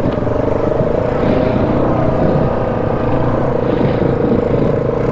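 ATV engine running at a steady, even pitch while the machine is ridden along a trail.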